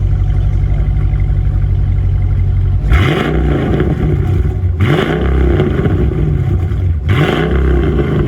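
Mercedes W211 E55 AMG's supercharged M113K V8 idling through a C63 AMG exhaust with the resonator deleted, then revved three times, each a quick rise and fall about two seconds apart. The owner calls the exhaust a little more aggressive sounding, but not too loud.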